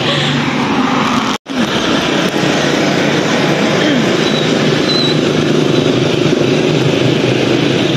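Traffic at a town street junction: motorcycles and a pickup truck passing, a steady rush of engine and road noise. It drops out suddenly for a moment about a second and a half in.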